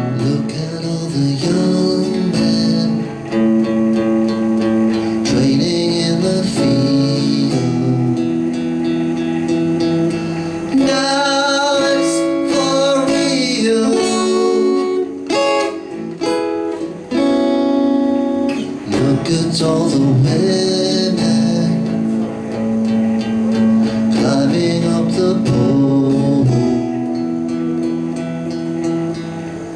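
Acoustic guitar song played live, strummed and picked, with a voice singing in places.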